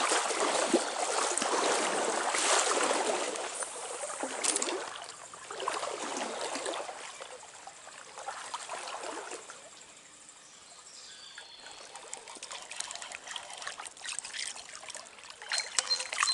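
Stream water trickling and splashing, loudest in the first few seconds, then swelling and fading down to a low trickle about two-thirds through, with small sharp splashes and ticks returning near the end.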